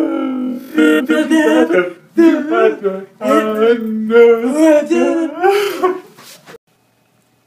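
Voices singing a lively song in short phrases, stopping abruptly about six and a half seconds in.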